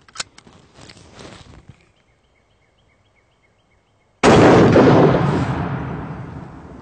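A few light handling clicks, then after a short lull a single very loud explosion-like blast about four seconds in, as the .22 shot strikes the AR-500 steel plates. It comes on sharply and dies away slowly over about two seconds.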